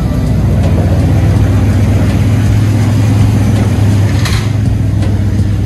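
A vehicle engine running steadily with a loud, low hum.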